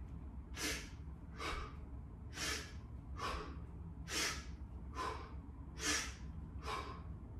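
A man's short, sharp breaths while lifting a kettlebell, about one a second, eight in all.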